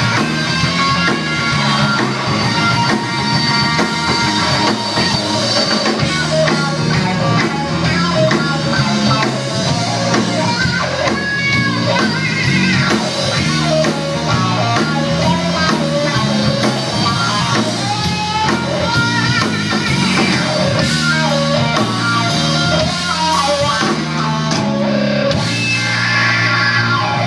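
Live blues-rock band playing: electric guitar over a drum kit.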